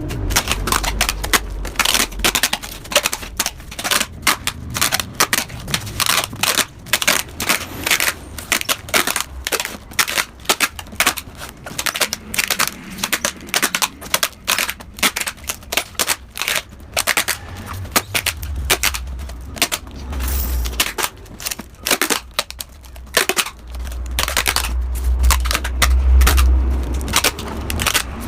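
Rapid, irregular crackling clicks from metalwork on a motorcycle exhaust, with a low hum coming and going in the second half.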